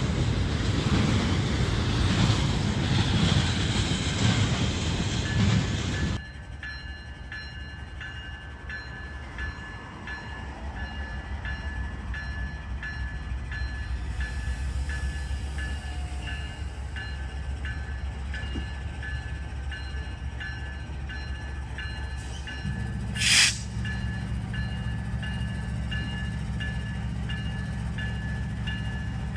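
Double-stack intermodal train rolling past close by: a loud steady rush of wheels on rail. It cuts off suddenly to a steady low rumble from Norfolk Southern diesel locomotives idling or creeping, with a faint high ding repeating about twice a second. Near the end the engine drone grows heavier and there is one brief sharp noise.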